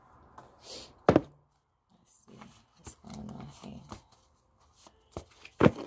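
Hands handling tarot cards on a table: a brief slide, then a sharp knock about a second in, soft rustling, and a quick run of sharp taps near the end.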